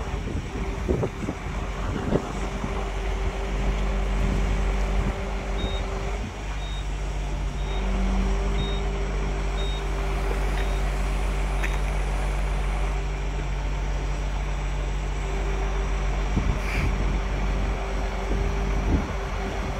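Diesel engine of a truck-mounted hydraulic crane running steadily, with humming tones from the hydraulics that shift pitch a few times as the crane is worked. A faint short beep repeats about twice a second for several seconds in the middle.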